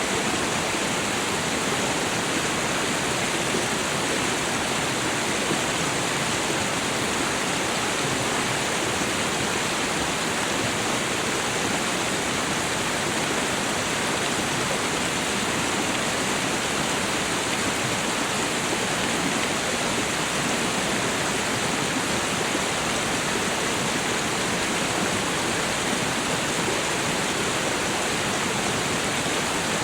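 Small waterfall and meltwater stream rushing steadily: a dense, even splashing hiss with no breaks.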